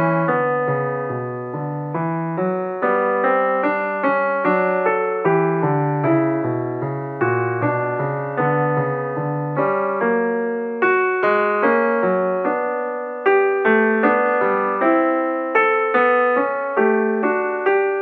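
Piano music: a steady run of struck notes and chords, each one dying away before the next.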